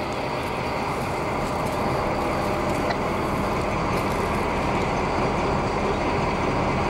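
SNCF BB 67400-class diesel locomotive 67457 running steadily at idle close by, its engine giving a constant drone with a low hum.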